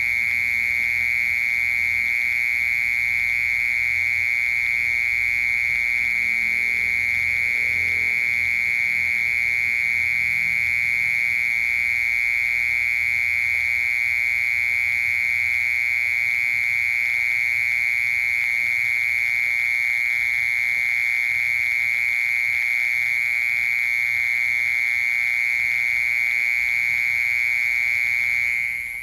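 A mole cricket singing: one steady, unbroken, fairly low-pitched trill that holds the same pitch without pause and stops right at the end.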